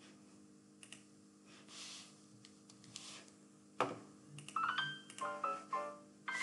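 A short electronic jingle of quick beeping tones stepping up and down, starting about two-thirds of the way through and preceded by a single click, over a faint steady electrical hum.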